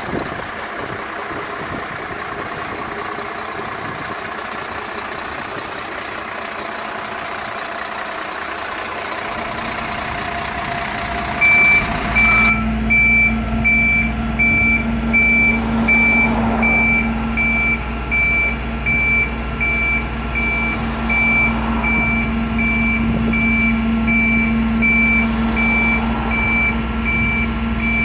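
Mercedes Econic refuse truck's diesel engine running. About twelve seconds in, the body's hydraulics engage with a louder steady low drone. At the same time a warning beeper starts and beeps evenly, a little more than once a second, while the tailgate lifts.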